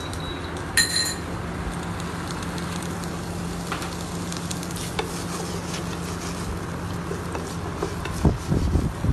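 Chopped onion sizzling as it sautés in olive oil in a non-stick frying pan, stirred with a wooden spatula, over a low steady hum. A single sharp ringing clink about a second in, and a few louder knocks of the spatula against the pan near the end.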